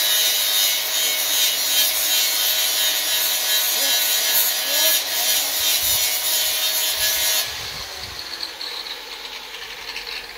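Large angle grinder running and grinding, a harsh hiss with a steady whine, which stops about seven seconds in.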